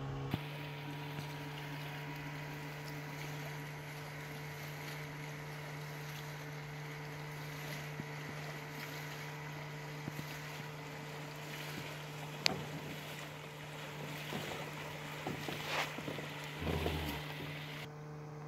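A steady low hum with a few higher overtones, with a single sharp click about twelve seconds in and a few faint knocks near the end.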